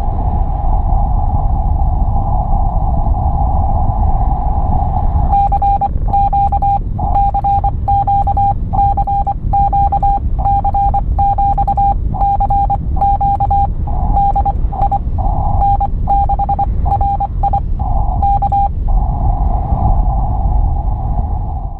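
Morse code from a mobile radio: a single steady tone keyed on and off in short and long marks for about thirteen seconds, over a narrow band of radio hiss. The low rumble of the car on the road runs underneath.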